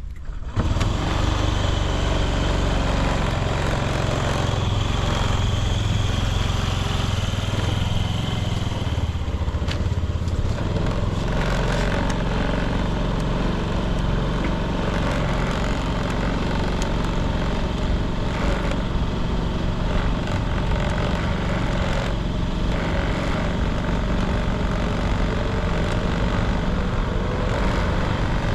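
Honda Smart Dio AF56 scooter's 50cc carburetted engine running steadily, without any abnormal noise. The sound comes in suddenly about half a second in, and its note changes and settles after about nine seconds.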